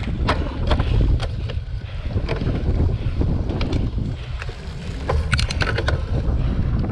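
Wind buffeting the microphone of a camera on a cyclocross bike riding fast over bumpy grass, with sharp clicks and rattles from the bike, thickest in a burst about five seconds in.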